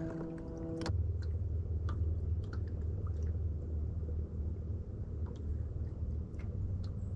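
Boat's bow-mounted electric trolling motor humming steadily: a higher-pitched whine cuts off about a second in, leaving a low hum, with faint scattered ticks over it.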